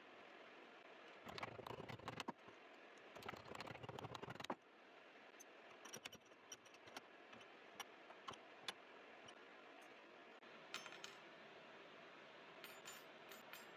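Faint clicks and light metallic taps as brass rod and wooden hooks are handled and fitted, with two short rough rubbing stretches in the first few seconds.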